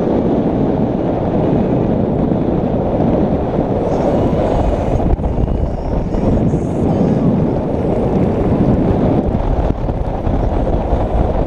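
Steady wind buffeting on the microphone of a moving camera: a dense, even rumble without any clear tone.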